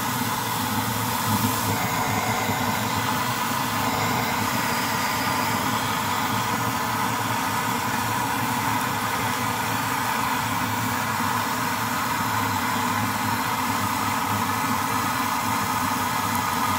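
A 100-year-old brass Primus kerosene pressure stove burning steadily at full flame under a frying pan, a loud, even burner noise with no break.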